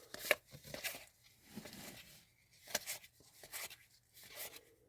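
Trading cards being handled and flipped through one by one: soft, irregular paper-on-paper slides and rustles with a few sharper taps.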